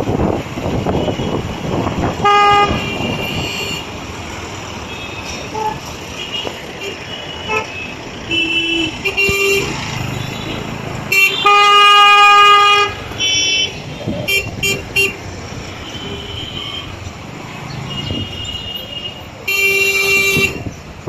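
Car horns honking over and over in congested street traffic: several short toots and a longer, loudest blast about eleven seconds in, with a steady rumble of engines and traffic underneath.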